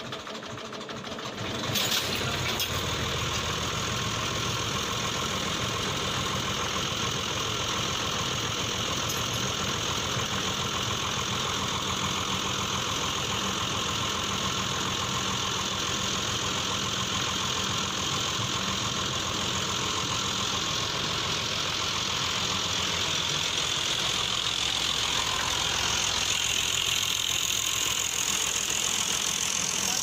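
Massey Ferguson 240 tractor's diesel engine idling steadily, growing louder about two seconds in and holding level after that.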